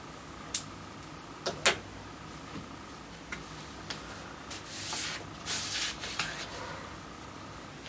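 A cigarette being lit: sharp lighter clicks, one about half a second in and a close pair a second later, then two soft breathy hisses about five and six seconds in as the smoke is drawn and exhaled. A faint steady whine sits underneath.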